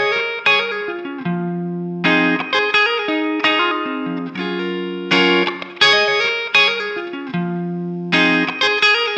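Electric guitar played through an MXR Duke of Tone overdrive pedal with light drive. It repeats a phrase of struck chords and picked notes that starts again about every three seconds.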